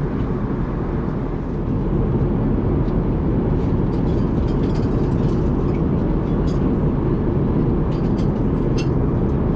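Steady cabin noise of an Airbus A380 in flight, a low, even rush of engine and airflow noise, with a few faint clicks on top.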